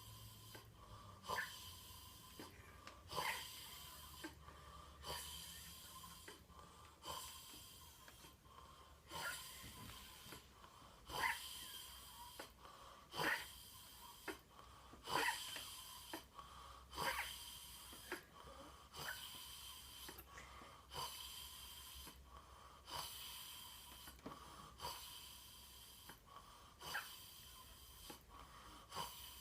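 A sleeping person snoring with a short, high, whistling wheeze on each breath, about once every two seconds.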